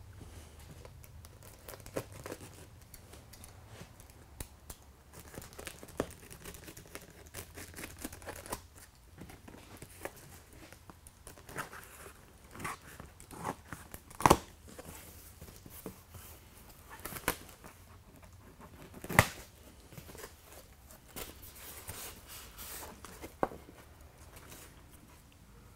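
Packing tape being slit and torn off a cardboard shipping box, with the cardboard flaps rustling and crinkling as they are pulled open. Scattered clicks and snaps run through it, the sharpest about 14 and 19 seconds in.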